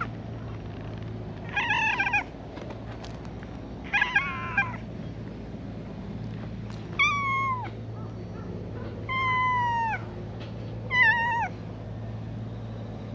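A cat meowing five times with a few seconds between calls, high-pitched, the later meows falling in pitch at the end.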